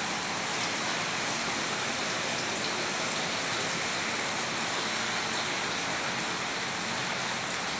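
Water running through an underground tunnel: a steady, even rush that does not change.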